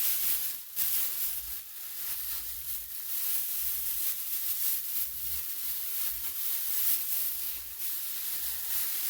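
Packing material rustling and crinkling as a smoke alarm is lifted out of its box, a continuous hissy rustle with a few soft bumps of handling.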